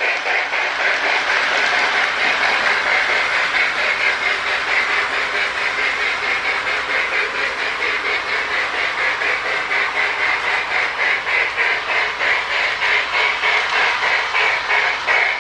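Marx Sound-O-Power tender unit giving a loud, rapid, even chuff as the Marx Commodore Vanderbilt toy steam locomotive runs along the track.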